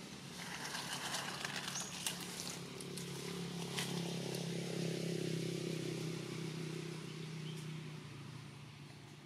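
A distant engine hum that swells for a few seconds and then fades, over scattered rustles and snaps of branches and leaves in the first few seconds.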